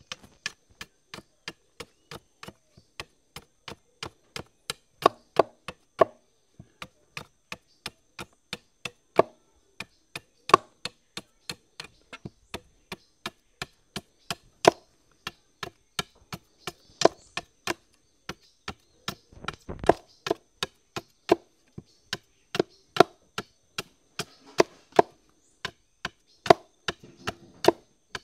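A machete chopping at the end of a wooden pole in a steady run of sharp blows, about two to three a second, shaping it to fit as the lever handle of a wooden sugarcane press.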